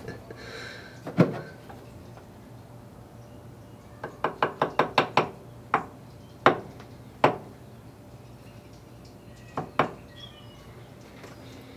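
Metal hand tool clicking and knocking on a car battery terminal as a cable clamp is fitted and tightened: one sharp knock about a second in, then a quick run of about seven clicks, followed by several single knocks.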